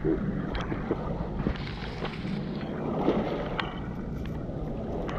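Small waves washing over the foreshore, one wash swelling about halfway through, with scattered sharp clicks and wind on the microphone.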